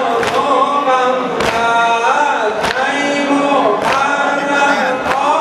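Men's voices chanting a Muharram lament in unison while the mourners beat their chests together (sineh-zani), a sharp slap about every second and a quarter, five in all.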